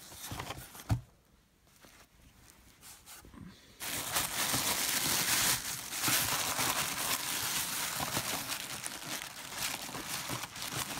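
Tissue paper crinkling as hands rummage through a cardboard box of packing, starting about four seconds in after a quiet stretch with one soft knock about a second in.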